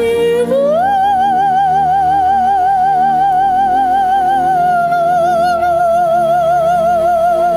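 Operatic music: a soprano voice holds one long note with vibrato over a soft accompaniment. The voice glides up to the note about half a second in and eases slightly lower a little past halfway.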